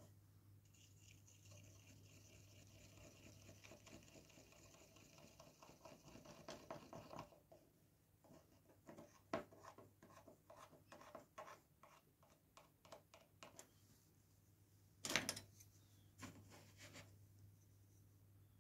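Faint small ticks and scrapes of a paintbrush and plastic kit parts on the sprue being handled, with one louder tap about fifteen seconds in and another a second later. A faint steady hiss runs under the first several seconds, over a low room hum.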